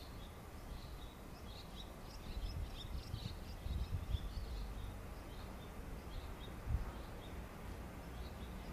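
Small birds chirping in quick runs of short high chirps, busiest in the first half and then sparser, over a steady low outdoor rumble with a few soft low thumps.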